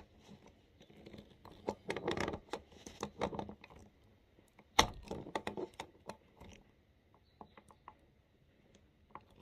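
Small irregular clicks and scrapes of plastic parts being handled as the water inlet hose's plastic fitting is threaded and hand-tightened onto an RV toilet's foot-flush valve, with one sharper click about five seconds in.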